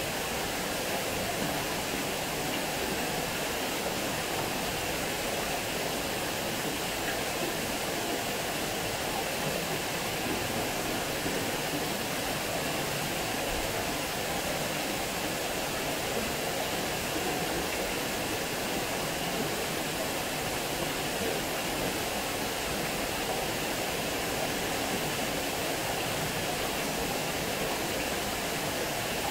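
Water pouring over a small weir into a stone-walled channel: a steady, unbroken rush of falling water.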